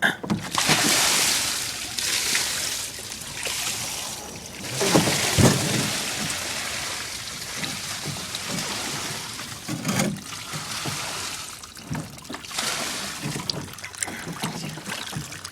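Rainwater being poured out and splashing, coming in uneven surges with a few knocks.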